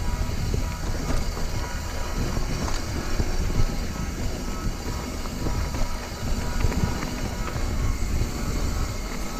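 Scott Scale hardtail mountain bike rolling fast down a dirt trail: a steady rumble of the tyres over the ground, with constant rattling and clicking from the bike as it bounces along.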